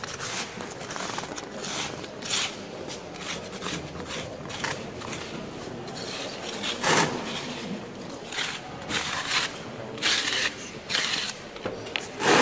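A straightedge scraping across packed green moulding sand in a casting flask, striking off the excess to level the mould. Irregular rasping strokes, with louder ones about seven seconds in and near the end.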